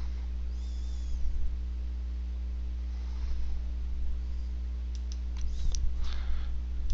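Several sharp computer-mouse clicks about five to six seconds in, over a steady low electrical hum.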